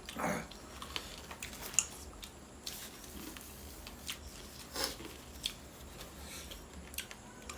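A person eating: chewing with scattered small clicks and smacks.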